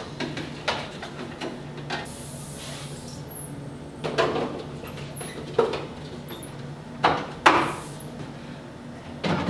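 Refrigerator shelves and bins being handled and slid into place: a series of separate clunks and scrapes, over a low steady hum.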